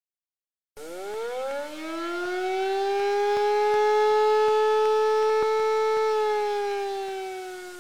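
A siren wail. It starts about a second in, winds up quickly in pitch, holds one steady note through the middle, and sags slightly in pitch near the end.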